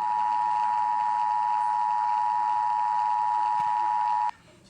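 Emergency Alert System attention signal: a steady, loud two-tone alarm held for about four seconds that cuts off suddenly near the end. It announces the alert message that follows.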